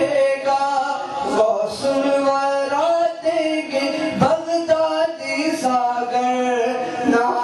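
A man singing a naat, unaccompanied Islamic devotional verse, with long held notes that waver and slide between pitches.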